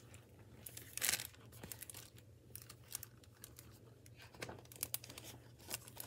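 Hardback picture book rustling and crinkling in several brief bursts as it is handled and turned around, the loudest about a second in.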